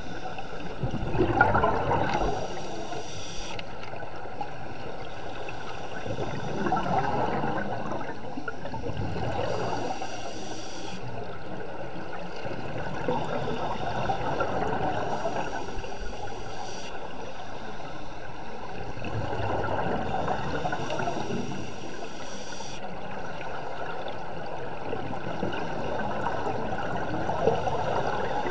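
Scuba diver breathing through a regulator underwater: a short hiss on each inhale and a bubbling rush on each exhale, repeating about every six seconds.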